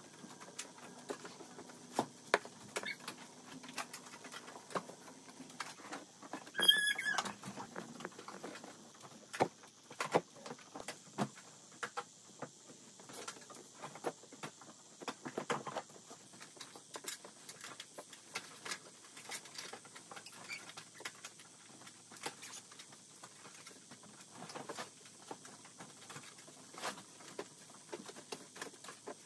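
Clothes being handled and folded by hand: soft rustling of fabric with scattered light taps and clicks, and a brief higher-pitched rattle about seven seconds in.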